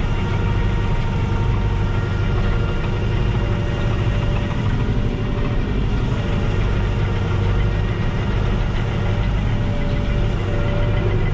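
Fendt Farmer 410 Vario tractor's four-cylinder diesel engine running steadily at an even speed.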